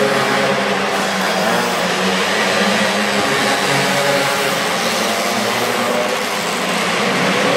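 Mini dirt bike engines running steadily around the track, a continuous engine drone whose pitch wavers slightly, echoing in a large hall.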